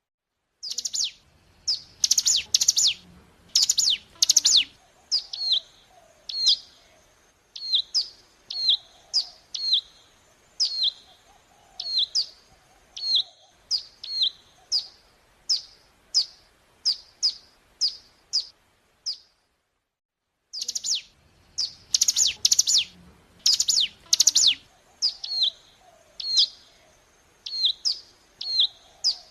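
Ciblek gunung, a prinia, singing: a string of sharp, high chirps that drop quickly in pitch, coming about one or two a second. The chirps come in two fast, loud flurries, one near the start and one about two-thirds in. The song stops for about a second just before the second flurry.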